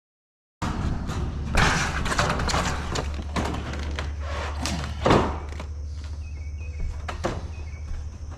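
Irregular knocks and thuds on sheet-metal roofing panels as they are handled and walked on during installation, over a steady low hum. The sound starts abruptly about half a second in.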